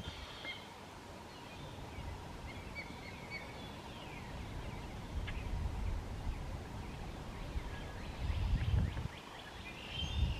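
Small birds calling across a marsh: scattered short chirps and quick falling notes. Irregular low rumbles come and go beneath them, loudest about eight to nine seconds in.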